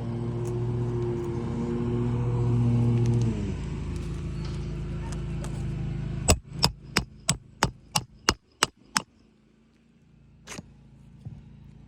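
A steady motor hum that winds down and stops about three seconds in, then a hammer driving a roofing nail into asphalt shingles with eight quick, sharp blows, about three a second, followed by two lighter taps.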